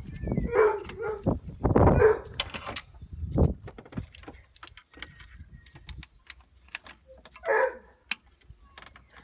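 Metal hand tools clicking and clinking against the engine while the oil pressure switch is worked loose. Short, loud voice-like sounds come in the first two seconds and again near the end.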